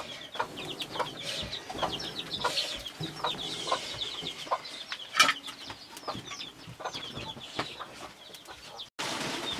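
Chickens clucking, with a steady run of short, quick, high peeps. Scattered small clicks and one sharper snap come about five seconds in.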